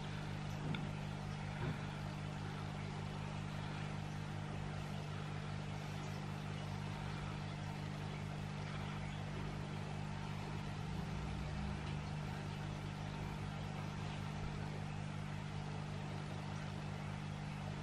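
Steady low background hum, with a couple of faint soft clicks in the first two seconds.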